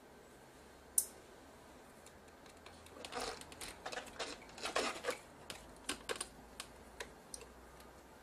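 Small clicks and rattles of the sheet-metal bracket, screws and chassis parts of a Sony PMW-EX1 camcorder being handled during disassembly. One sharp click comes about a second in, then a run of quick irregular clicks and light scraping for a few seconds.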